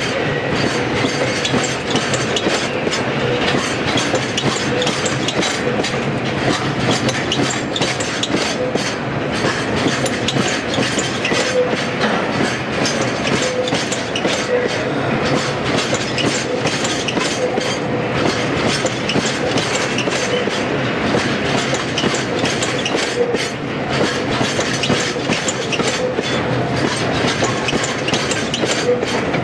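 A line of Taki 1000 tank wagons rolling steadily past, their wheels clicking over the rail joints in a continuous clickety-clack.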